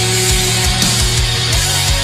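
Loud music with a fast, driving drum beat, about five low drum hits a second, under held bass notes that shift about one and a half seconds in.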